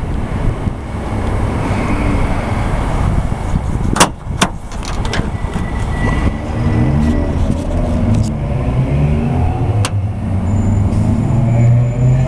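Wind rumbling on the microphone with a vehicle engine humming, its low hum growing stronger in the second half. Two sharp clicks come about four seconds in, and a third near ten seconds.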